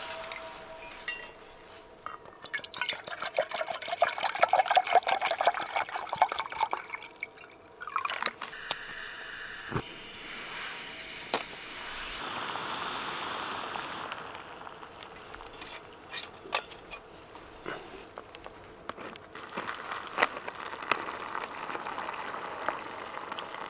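Camp cooking on a Primus canister stove: water pours into the pot, rising in pitch as it fills, then a click, and the gas burner hisses steadily once lit. Near the end, boiled water is poured from the pot into a freeze-dried meal pouch.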